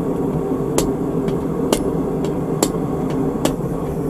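Hot 3/8-inch steel round bar being rammed end-first against the face of an anvil to upset it: sharp metallic strikes about once a second, with lighter knocks between them, over a steady rushing background noise.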